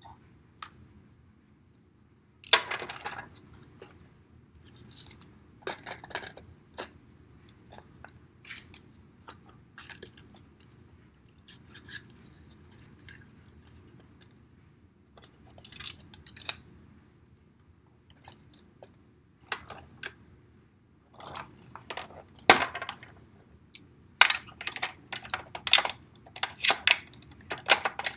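Plastic toys being handled on a glass tabletop: scattered clicks, taps and clatters as a small plastic figure and a toy pickup truck are moved against a plastic playset, coming thicker near the end.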